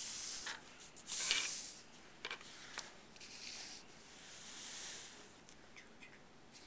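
Poster board and paper strips sliding and rustling over a carpeted surface as they are moved by hand, in several soft swishes, with a couple of light clicks near the middle.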